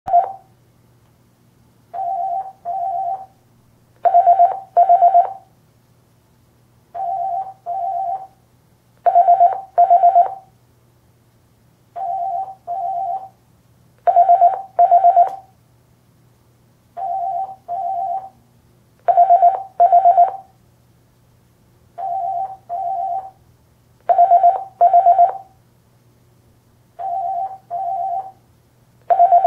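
Office telephone's electronic ringer sounding in double rings: two short warbling trills per ring, repeating about every two and a half seconds, alternating softer and louder pairs. A faint steady hum lies beneath.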